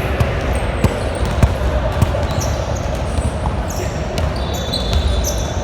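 A basketball bouncing on a hardwood gym floor a few times, with short high shoe squeaks on the court over a steady din of voices in a large hall.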